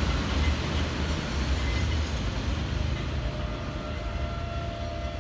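Container freight train rumbling away along the line, the sound fading steadily as the train recedes. A faint steady tone joins about three seconds in.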